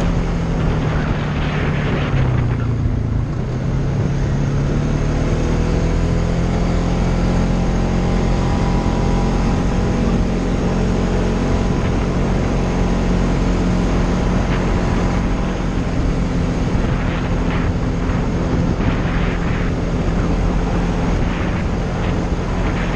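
Polaris Sportsman ATV engine running under way, its pitch dropping briefly about two seconds in as the throttle eases, then picking back up and holding steady.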